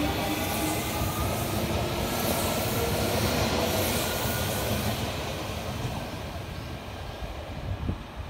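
Odakyu 3000-series electric commuter train accelerating away: a motor whine rising slowly in pitch over the rumble of wheels on rail. The sound fades steadily over the last few seconds as the train leaves, with a short knock near the end.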